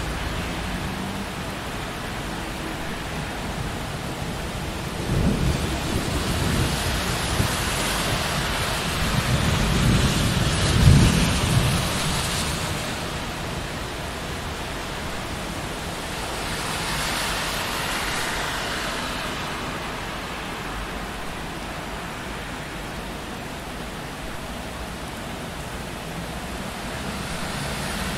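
Steady rain on a city street with vehicles passing on wet road. One pass swells and fades over several seconds with a deep rumble about a third of the way in, and a lighter tyre hiss swells and fades past the middle.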